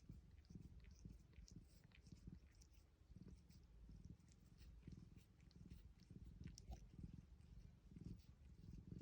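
Domestic cat purring softly, a low, pulsing rumble.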